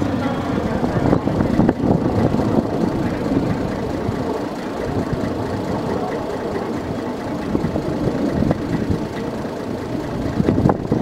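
Diesel engine of a KiHa 10 railbus idling steadily while the railcar stands at the platform.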